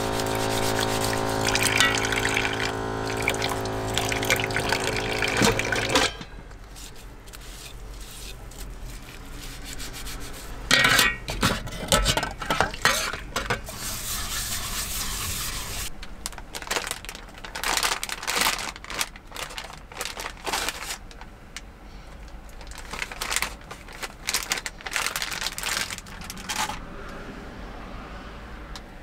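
Dishes being washed at a small sink. Tap water runs with a steady hum and stops about six seconds in. After that, a stainless bowl and cup clink and scrape against the basin as they are scrubbed, with short runs of water.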